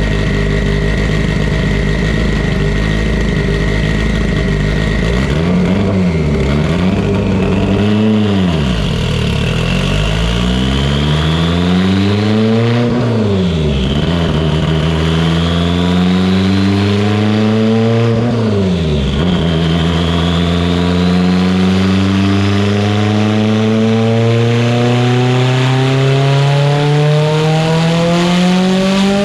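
Mitsubishi Lancer Evolution VIII's built, turbocharged 2.0-litre four-cylinder on a chassis dyno. It runs steadily for a few seconds and is blipped up and down three times, then makes a long pull with engine speed climbing steadily through the second half.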